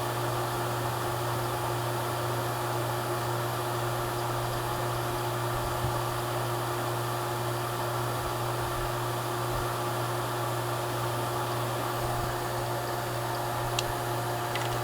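HVAC refrigerant vacuum pump running steadily, a constant motor hum with a steady drone, in the last seconds of a three-minute evacuation as it pulls the system down to about 160 microns.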